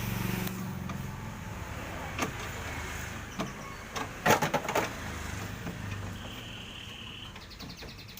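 A low engine hum that fades after about a second, then a few sharp clicks and a quick run of loud knocks a little past the middle.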